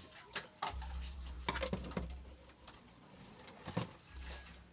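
Scattered clicks and knocks of a radio cassette player's plastic parts being handled and fitted back together, with a low rumble coming in twice.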